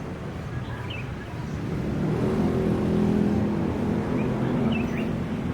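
A motor vehicle's engine passing by, growing louder about two seconds in and then easing off.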